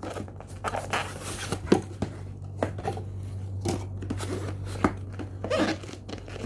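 Cardboard product packaging being handled and opened by hand: scattered taps, scrapes and rustles as the outer box is worked open and a white inner box is taken out.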